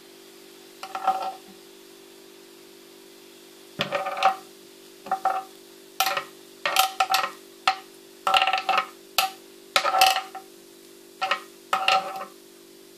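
Metal spoon clinking and scraping against a glass bowl as grapes are scooped out: a dozen or more irregular clinks, each ringing briefly, over a steady low hum.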